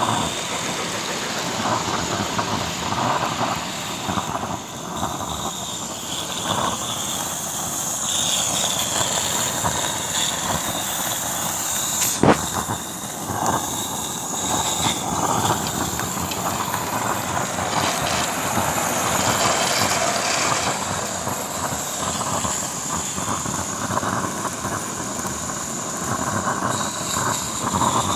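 Small live-steam garden-railway locomotive hissing steadily as its cab controls are worked, with one sharp click about twelve seconds in.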